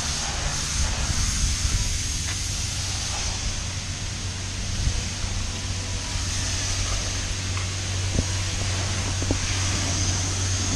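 Pressure-washer wand spraying water in a self-service car wash bay, a steady hiss over a steady low hum.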